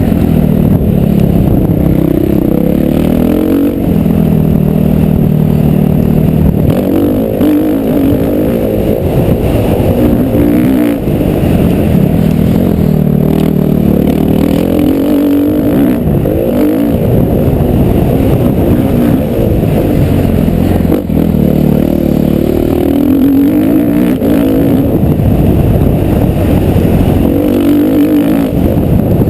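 Motocross bike engine running hard and close up. Its pitch repeatedly climbs under throttle and drops back every few seconds as the bike accelerates, shifts and slows through the track's sections.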